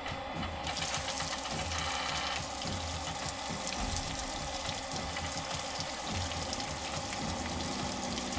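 Wet concrete gushing in a steady stream from a cement mixer truck's chute onto the road, a continuous pouring, splashing sound that starts under a second in.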